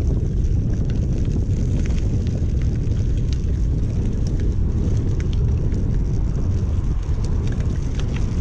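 Wind buffeting the microphone of a handlebar-mounted camera on a moving bicycle: a steady, loud low rumble, with scattered faint ticks from the bike and the gravel path.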